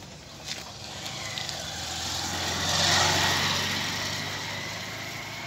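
A motor vehicle passing by on the road: engine hum and tyre rush growing louder to a peak about three seconds in, then fading away.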